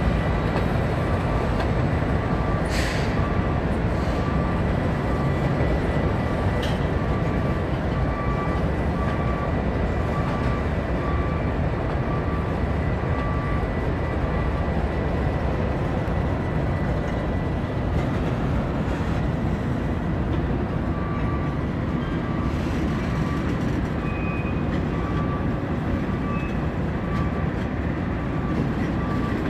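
Freight train of tank cars in a rail yard: a steady low rumble, with a faint high tone pulsing on and off. A brief sharp sound comes about three seconds in and another around seven seconds.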